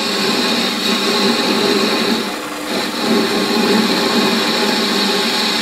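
Metal lathe running while a boring bar roughs out a bore in a spinning workpiece: a steady cutting noise with a hiss over a motor and gear hum. It eases off briefly about two and a half seconds in, then carries on.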